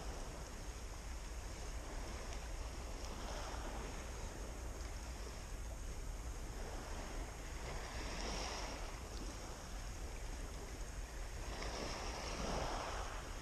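Calm sea water lapping, with soft washes every few seconds over a steady background rush.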